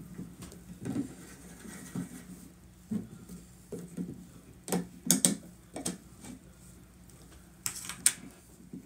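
Hands handling a plastic tub and prying off its snap-on lid: scattered taps and knocks, with sharp plastic clicks and crackles about five seconds in and again near eight seconds.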